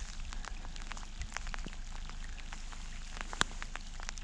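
Rain falling, with scattered drops ticking irregularly close by and one sharper tick about three and a half seconds in, over a faint low rumble.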